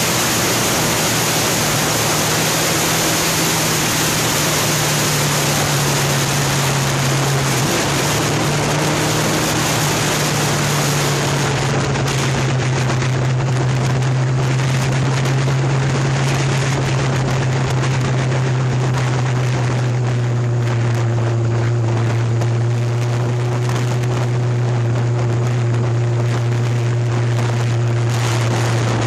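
Motorbike engine running steadily at road speed, ridden to charge its battery, under heavy wind and road rush on a phone microphone. The engine hum steps down in pitch about seven seconds in, then holds steady.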